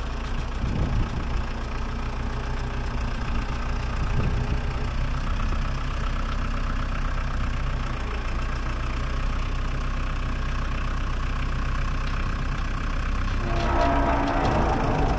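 Diesel engine of a 2010 Case IH Farmall 45A compact tractor running steadily at low revs as the tractor creeps forward with its front loader; near the end a higher-pitched whine joins in.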